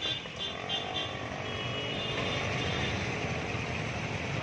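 Steady traffic noise: vehicle engines running, without sudden changes.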